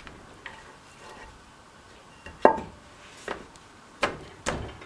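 Four sharp metal knocks and clunks as the rear sprocket carrier is pushed and seated onto the motorcycle's rear wheel hub over the rubber cush drives. The knock about halfway in is the loudest.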